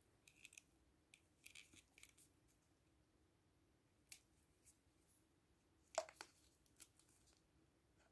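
Faint crinkles and small clicks of gloved hands squeezing a tube of hair dye into a plastic applicator bottle, with a few sharper clicks, the loudest about six seconds in.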